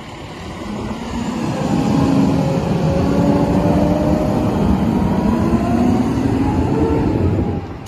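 Fire engine's diesel engine pulling away and driving past. It grows louder over the first couple of seconds, holds steady with its pitch drifting up and down, then falls away sharply near the end.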